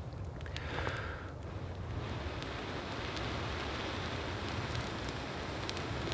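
Long, steady breaths blown into a smouldering tinder bundle to coax the ember into flame, a rushing airy noise that settles into one even blow from about two seconds in.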